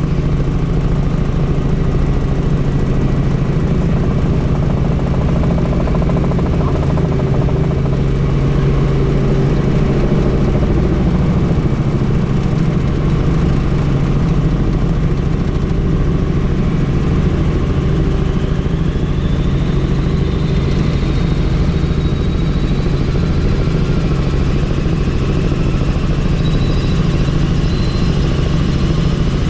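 Helicopter in flight heard from inside the cabin with the doors off: a steady, loud rotor and engine drone, with faint high whining tones rising in pitch in the second half.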